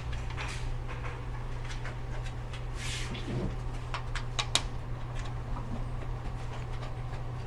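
Scattered light clicks and short scrapes of a PC case being handled, over a steady low hum.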